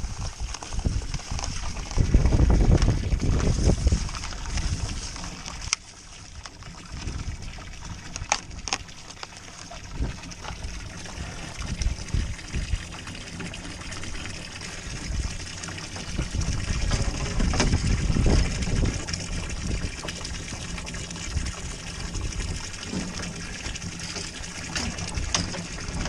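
Water pouring and trickling into a livestock water tank as a steady splashing hiss, with loud low rumbles now and then, the strongest about two to four seconds in and again near eighteen seconds.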